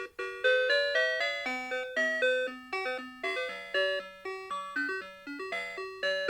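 Citizen 4RM753 Ghibli melody alarm clock playing one of its tunes in chime-like tones, several notes sounding together, about four notes a second. The melody breaks off for a moment at the start, then carries on.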